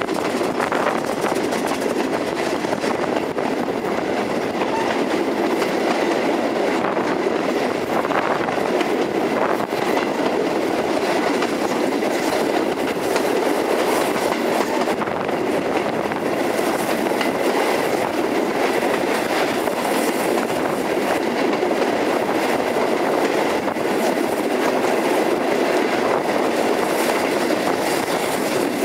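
Steam-hauled train behind a Bulleid West Country class locomotive running at a steady speed, heard from on board: wheel and rail noise with the clickety-clack of rail joints, steady throughout.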